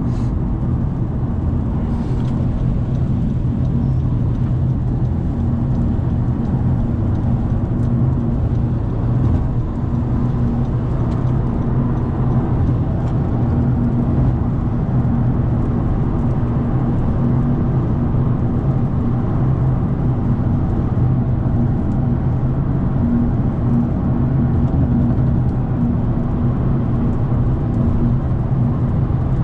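Steady engine drone with tyre and road noise, heard inside a turbocharged car's cabin while cruising at an even speed.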